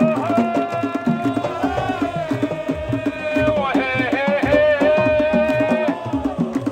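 A crowd of sports fans singing a chant in unison, holding long notes, over steady drumming.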